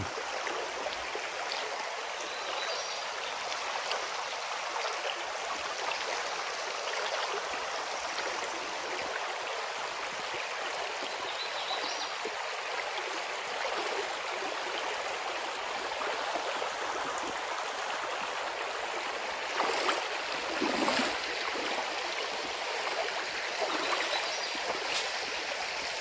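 Steady rushing of a shallow, rocky creek, with a few louder splashes from barefoot wading steps near the end.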